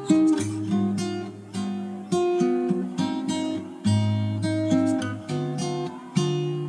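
Background music: acoustic guitar strumming chords, each chord struck and left to fade.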